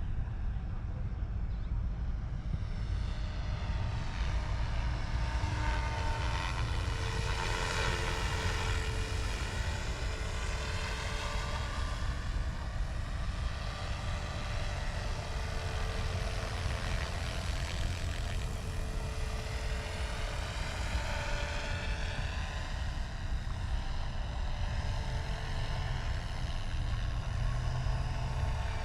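Small helicopter flying low: a steady engine and rotor drone with a deep rumble and a swirling shimmer that rises and falls in pitch as it moves about.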